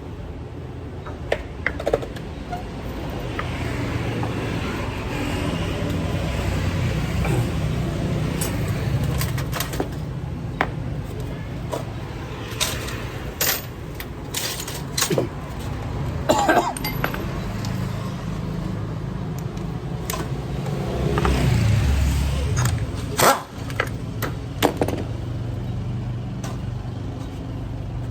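Honda Future 125's single-cylinder engine running with a steady low hum that swells twice, with scattered sharp clicks and knocks over it.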